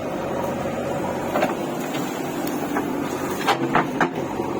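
An engine running steadily, with a few short sharp knocks, most of them near the end.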